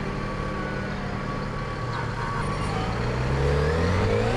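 Yamaha FZ6R's 600cc inline-four engine running steadily at first, then revving up as the bike pulls away from a stop, its pitch rising from about two seconds in.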